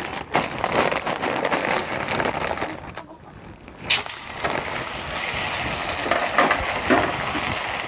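Plastic bag of raw krupuk crackers crinkling as a handful is taken out. About four seconds in, the crackers go into hot oil in a wok and sizzle steadily while they are stirred with a wooden spatula.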